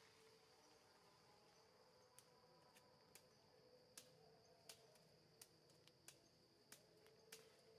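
Very faint forest insect chorus: a steady high-pitched buzz of crickets or cicadas, with a row of sharp ticks about every 0.7 s from about two seconds in.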